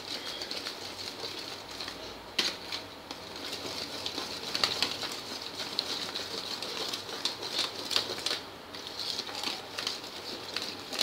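Steel wire whisk beating thick shrikhand (strained yogurt and sugar) in a plastic bowl: a continuous rapid patter of wires slapping through the mixture and ticking against the bowl, with a few louder clicks.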